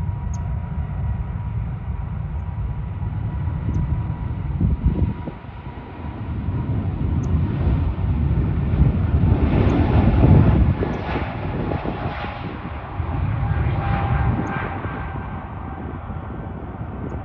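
Airbus A220-300's Pratt & Whitney PW1500G geared turbofan engines at takeoff power: a deep rumble that swells to its loudest about ten seconds in, then eases.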